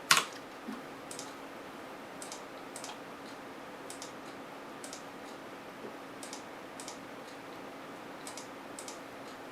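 Light, irregular clicks at a computer, about a dozen over the stretch, the sharpest right at the start, over a faint steady hum.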